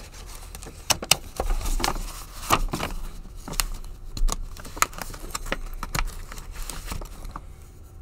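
Paper envelope and a small plastic sleeve being handled, crinkling and rustling, with scattered sharp clicks and taps as a poker chip is taken out and turned over in the hands.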